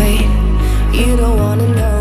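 Background pop song: a steady bass under a gliding melody line.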